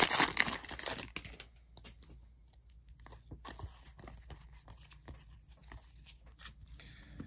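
Foil wrapper of a trading-card pack being torn open and crinkling loudly for about the first second. After that come faint, scattered clicks and rustles as the stack of cards is handled and flipped through.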